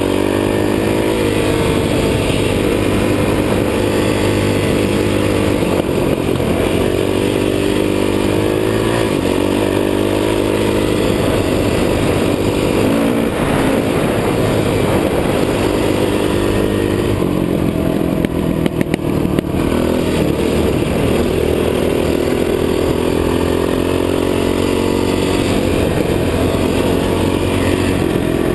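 Dirt bike engine running as the bike is ridden along a dirt trail, its pitch rising and falling repeatedly as the throttle opens and closes. A few sharp clicks come about two-thirds of the way through.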